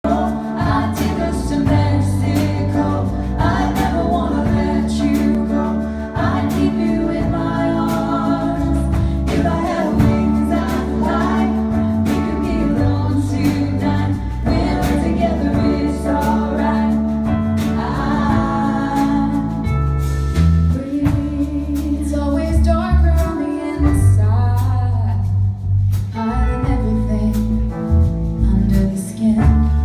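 A woman singing lead into a microphone over a live band, with drums and a steady low bass line underneath.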